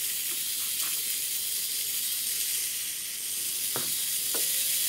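Hornby Dublo Co-Co motor bogie's small electric motor and gears running freely on test leads, a steady high hiss with a faint hum and a couple of light clicks near the end. The motor is still dry, not yet oiled, and running warm.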